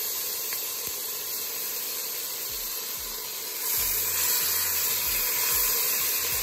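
Beef short ribs searing in hot oil in a pressure-cooker pot, a steady sizzle that gets louder about four seconds in as another rib goes into the pan.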